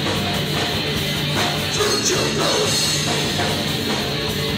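Live hardcore metal band playing loud, with distorted electric guitars and a drum kit.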